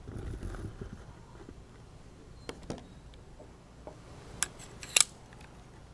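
A few scattered sharp clicks and light knocks from handling things, the sharpest two coming close together near the end.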